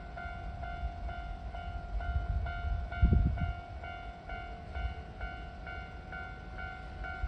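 Japanese level-crossing alarm ringing in steady repeated strokes, about two a second, over the low rumble of a Kintetsu train, which swells into heavy low knocks about three seconds in.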